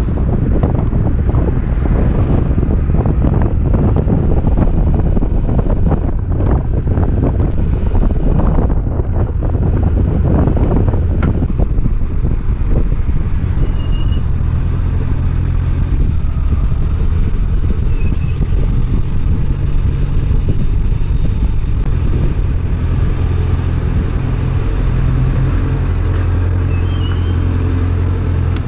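Motorcycle engine running under way while riding, with wind buffeting the microphone, roughest in the first dozen seconds. After that the engine runs smoother and steadier.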